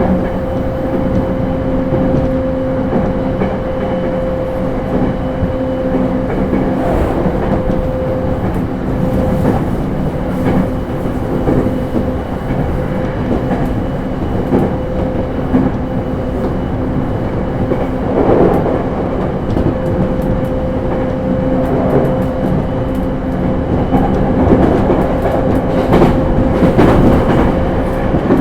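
Running sound inside a JR East E231 series suburban train travelling at steady speed: a continuous rumble with a steady hum and the clickety-clack of the wheels over rail joints.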